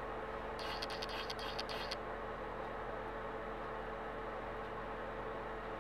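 Quick scratchy strokes of a paintbrush on a silk-covered balsa wing between about half a second and two seconds in, over a steady hum from a small shop heater.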